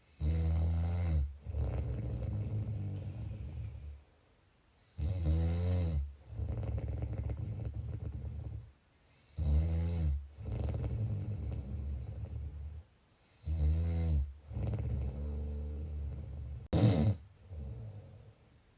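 Slow, regular snoring: four breaths, each a loud snore of about a second that rises and falls in pitch, followed by a longer, quieter breath and a short pause. A shorter, sharper snore comes near the end.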